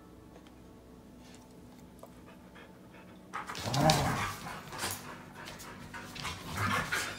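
Two Bernese mountain dogs, an adult and a four-month-old puppy, playing: panting, with two louder bouts of dog noise, one about halfway through and one near the end.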